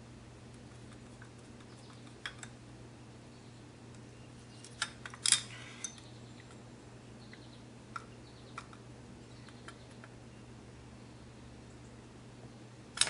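Scattered small metal clicks and taps from carburetor parts and a screwdriver being handled while jets are threaded into the carburetor body, with a louder cluster of taps about five seconds in.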